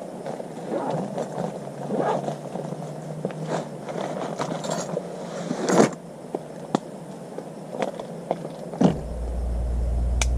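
Small clicks and scrapes of camp cooking gear being handled, then about nine seconds in a car engine's low rumble starts and keeps running.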